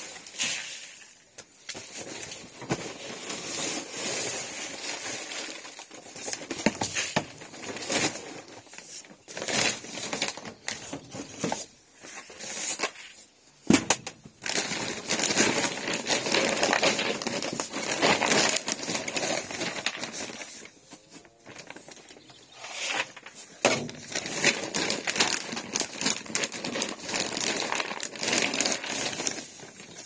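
Paper and woven plastic feed sacks rustling and crinkling as they are handled, with scattered knocks and clatters.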